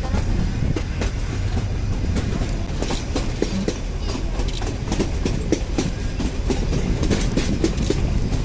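Nilgiri Mountain Railway toy train running along the track: a steady low rumble with frequent irregular clicks and knocks from the wheels and carriages.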